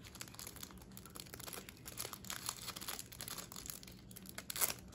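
Soft crinkling and rustling of packaging as a pin is unwrapped, with a string of small irregular clicks and a louder rustle near the end.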